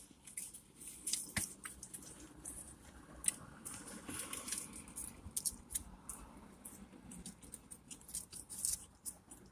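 Faint eating and food-handling noises: scattered small clicks and crinkles, as of a burger wrapper being handled and quiet mouth sounds.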